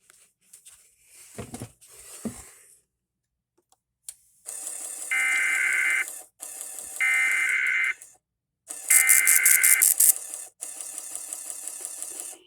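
NOAA Weather Radio EAS/SAME header: three roughly one-second squawks of digital data tones about a second apart, carried over radio hiss with a rapid fluttering buzz. This is the Required Weekly Test header coming through a relay that is not passing it cleanly.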